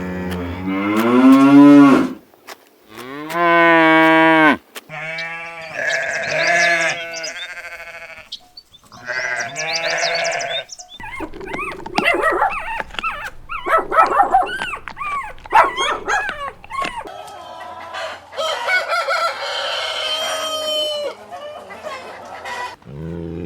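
Sheep bleating: a few loud separate calls, then many overlapping calls from a flock from about halfway through.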